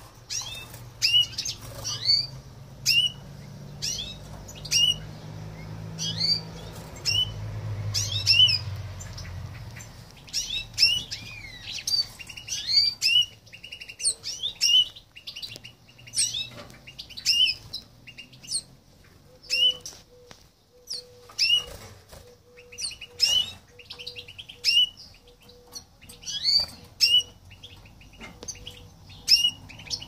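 Young goldfinch × canary mule fledgling calling: short high chirps repeated about once or twice a second.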